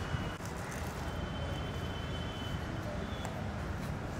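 Steady outdoor city ambience: a low, even rumble of distant traffic, with a faint thin high tone for a second or so after about a second in.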